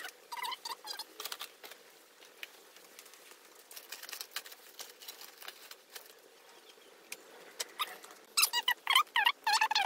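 Rubber-soled sneakers squeaking on a smooth concrete floor: a few short squeaks about half a second in, then a louder cluster of squeaks near the end. Light clicks and rustles of cables being handled come in between.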